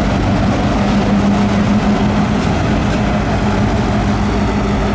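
CSX local freight train passing close: the diesel locomotive's engine gives a steady drone over the heavy rumble of the train rolling on the rails.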